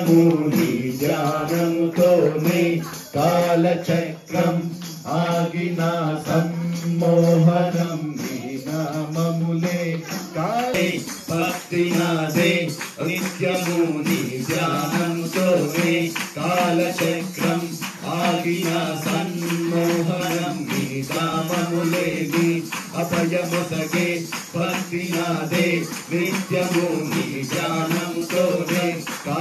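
Devotional Ayyappa bhajan: singing over a steady beat of tambourine and jingling bells.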